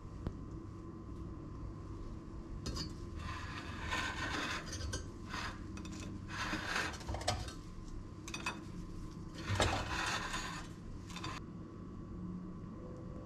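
Kitchenware being handled: a string of dry scrapes and light clinks as pieces of toast are taken from a metal air fryer basket and set on a ceramic plate around a bowl, starting a few seconds in and stopping shortly before the end. A faint steady hum runs underneath.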